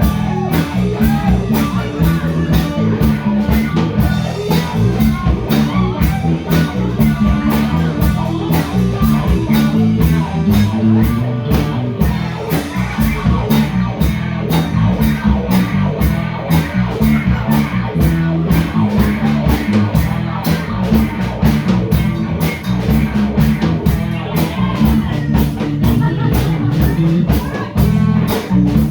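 Live band jamming on a rock tune: electric guitar over bass and a drum kit keeping a steady beat.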